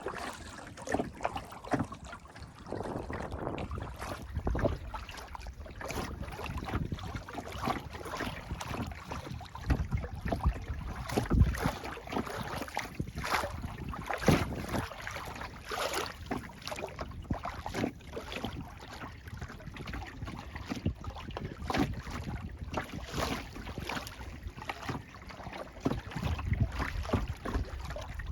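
Kayak paddle strokes splashing in lake water, with wind buffeting the microphone.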